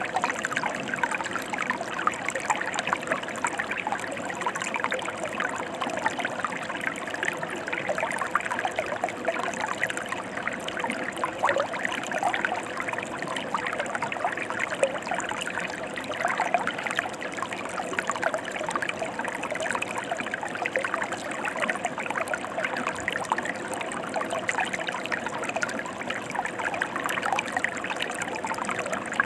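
A mountain stream running steadily, a constant rushing babble flecked with many small splashes.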